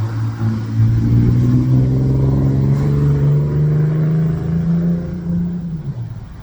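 A motor vehicle's engine accelerating, its pitch climbing slowly and steadily for about six seconds before it stops.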